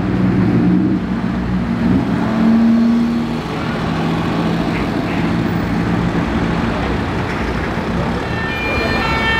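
Aston Martin Rapide's V12 engine pulling away through a corner, its note rising about two seconds in and dropping at about three and a half seconds, then running on under road and traffic noise.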